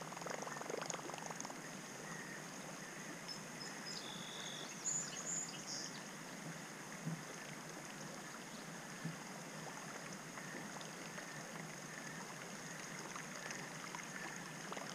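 Faint splashing and gurgling water as a plopper-style topwater lure is reeled across the river surface, its tail churning up a wake, over a steady hiss of moving water.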